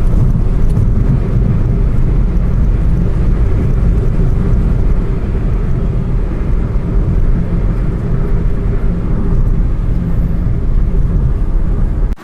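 Suzuki Swift diesel on a road test after a new clutch was fitted: steady engine and road noise with a heavy low rumble, pulling without the earlier clutch slip. It cuts off abruptly at the end.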